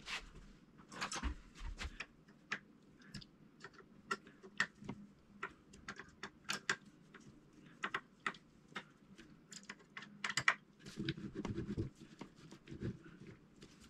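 Irregular small clicks and taps of a screwdriver and hard plastic parts being handled, as a homemade tennis ball machine's plastic gear assembly is worked on by hand. A few duller knocks come near the end.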